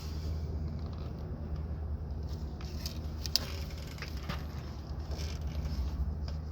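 Small metallic clicks and handling noise as a plastic air line is pushed into the push-to-connect fitting of a truck cab air bag, with one sharp click a little past the middle, over a steady low hum.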